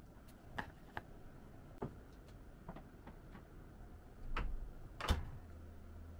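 Light clicks and knocks as a microwave oven is loaded. The door shuts about five seconds in, the loudest knock, and a low steady hum follows.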